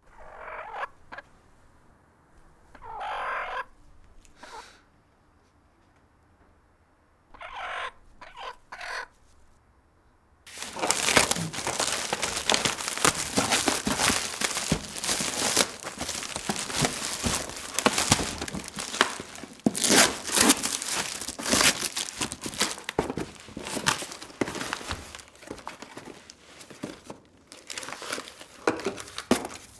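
A hen gives about four short calls. Then, about ten seconds in, plastic stretch wrap around a pallet load is torn and crumpled by hand: a loud, dense crackling that goes on almost to the end.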